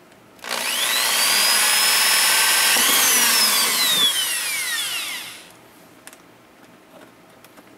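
Electric drill boring a hole through a clear acrylic sheet into a plastic crate lid. The motor whine climbs as the drill starts, holds steady, then falls away over about two seconds as the motor winds down.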